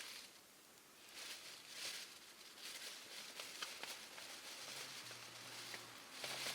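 Small wood fire crackling: a few sharp pops and snaps over a soft hiss that swells and fades.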